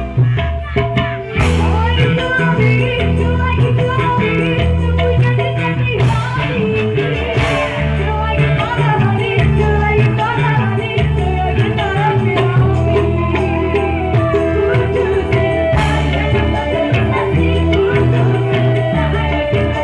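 Live band music played loud through a PA: electric guitars, bass and drum kit keeping a steady beat, with a woman's voice singing the melody over it.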